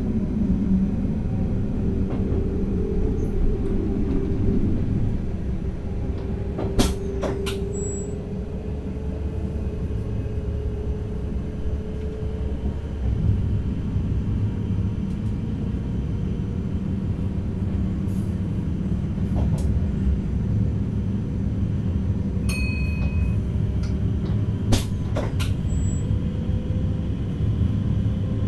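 Cab of an NS DDZ double-deck electric train running along the line: a steady low rumble from the running gear, with a faint motor whine that slowly rises in pitch. A few sharp clicks stand out, two close together about a quarter of the way in and one more near the end.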